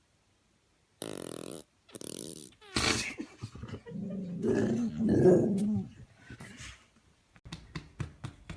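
A dog growling and whimpering: two short pitched whines, then a longer, louder stretch of rough growling, with scattered small clicks near the end.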